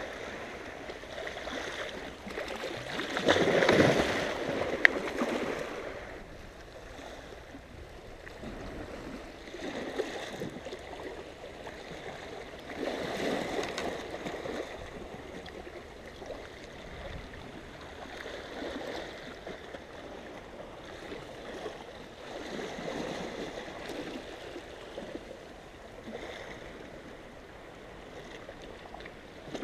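Small sea waves washing against a rocky shore, swelling and falling back every few seconds, the biggest about four seconds in. A single sharp click about five seconds in.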